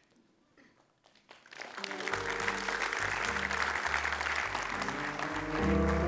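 Audience applauding, building up about a second and a half in, as music with held bass notes starts about two seconds in.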